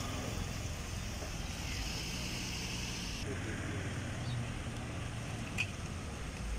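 Steady low outdoor rumble, like wind on the microphone mixed with distant engine noise, with one short sharp click about five and a half seconds in.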